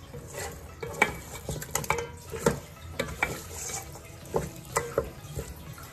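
Silicone spatula stirring and turning mutton pieces in a large metal pot, with irregular knocks and scrapes against the pot and a light sizzle as the meat sautés in a little oil with salt.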